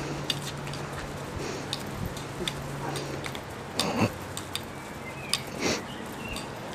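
A Tenterfield terrier playing with a plastic broom on grass: scattered small clicks and scuffs of the broom head and the dog's mouth on it, with two louder short sounds about four and six seconds in.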